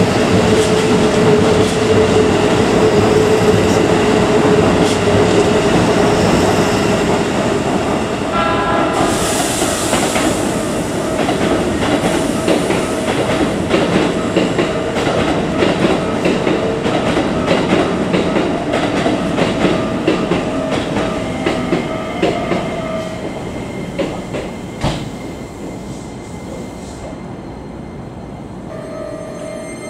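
Keikyu electric train running out along the platform and away: wheels clattering over rail joints and points, with a steady hum from the train. The sound is loud at first and fades after about twenty-four seconds as the train moves off.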